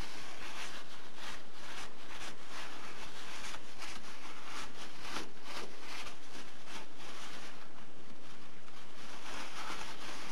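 Crumpled paper towel rustling and rubbing over a metal lathe workpiece and tool post, wiping off chips, in irregular scrubbing strokes.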